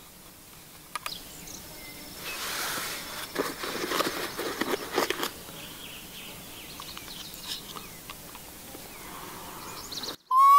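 Clothing and gear rustling with a few light clicks for a few seconds as a hunter's equipment is handled, then right at the end a hand-blown fawn distress call starts one loud, high, steady bleat, a predator call used to draw in bears.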